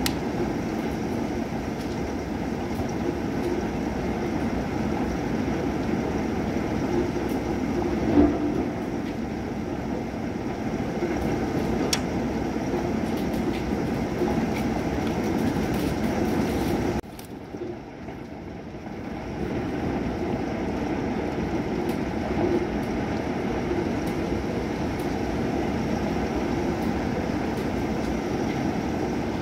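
Steady rushing noise of a thunderstorm, with a short loud knock about eight seconds in. Just past halfway the noise drops away abruptly for about two seconds, then comes back.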